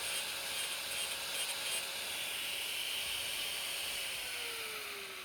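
Angle grinder grinding down a motorcycle chain rivet head, a steady hiss of disc on steel, then winding down with a falling whine about four seconds in.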